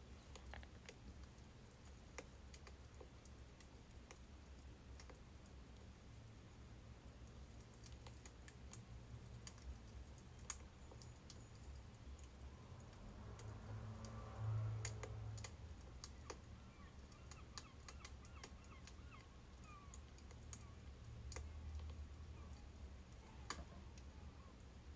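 Birch firewood burning, faint, with irregular small crackles and pops over a low rumble, and a soft thump about halfway through.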